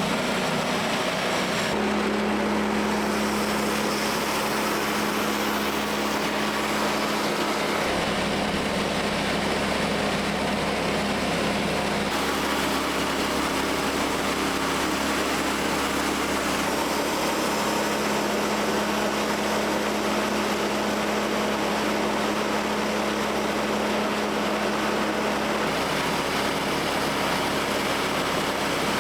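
Sawmill engine running steadily, with abrupt small shifts in its pitch a few times.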